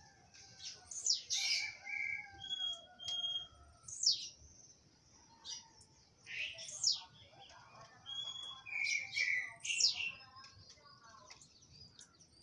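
Songbirds calling: loud, quick downward-sweeping whistled notes in clusters every couple of seconds, with short level whistles between them.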